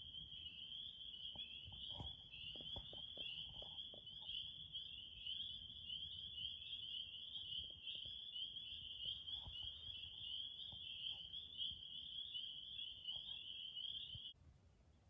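Dense chorus of insects trilling, a steady high-pitched pulsing buzz that cuts off abruptly near the end. A few soft rustling taps come in the first few seconds.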